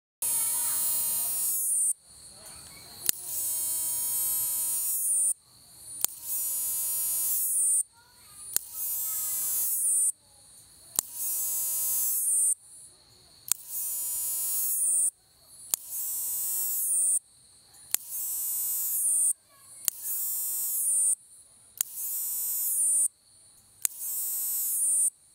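Taiwan spiny-legged katydid singing: a loud, high-pitched buzz in phrases of about two seconds, each swelling from a softer build-up and then cutting off sharply, repeated about every two seconds.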